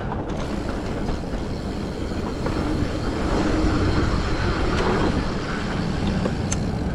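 Mountain bike riding a rough dirt trail: a steady rush and rumble of wind on the camera microphone and tyres and frame rattling over the ground, with a few small clicks.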